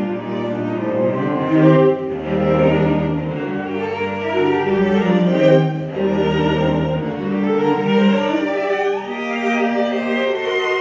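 A string quartet of two violins, viola and cello playing live in sustained, held notes, the cello sounding long low notes beneath the upper strings.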